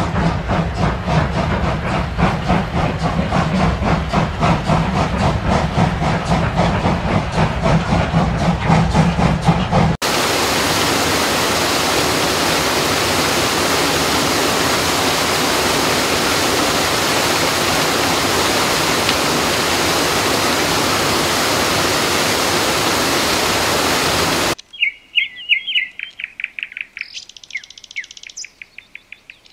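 Recorded sound effects played through a model railway's sound system: a steam locomotive chuffing in a steady rhythm, which cuts off about ten seconds in to a steady rush of waterfall noise. Near the end the water sound stops suddenly and gives way to birds chirping.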